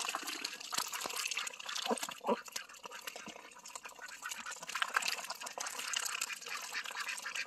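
Many domestic ducks dabbling in a tub of muddy water, their bills sifting and slurping in a dense, wet, crackling patter of tiny clicks and splashes. Two short, soft calls come about two seconds in.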